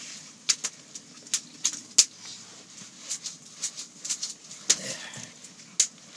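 Open wood fire crackling, with sharp irregular pops and snaps.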